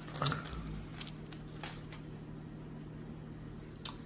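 Wax paper crinkling as it is peeled off a foam takeaway box of food, loudest about a quarter second in, then a few faint clicks and eating noises, over a low steady hum.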